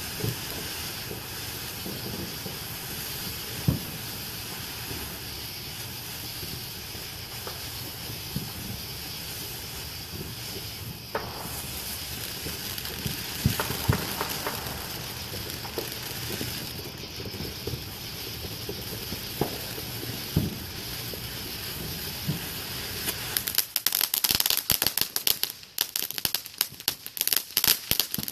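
'2cool' firework fountain burning with a steady spraying hiss and scattered single pops. About 23 seconds in it breaks into dense, rapid crackling.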